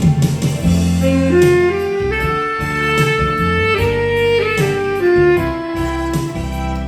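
Saxophone playing a slow melody in long held notes that step up and down, over an accompaniment with a bass line and a steady beat.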